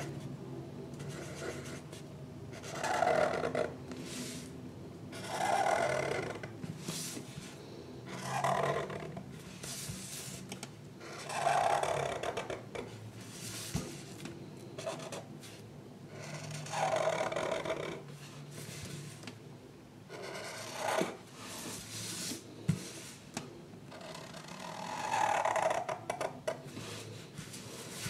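Drawing strokes on paper: a rasping stroke of about a second, repeated every few seconds.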